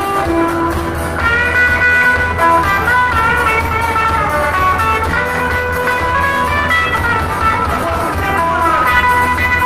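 A live band playing an instrumental Irish reel on guitars and bass guitar. A lead guitar melody with bent notes comes in about a second in.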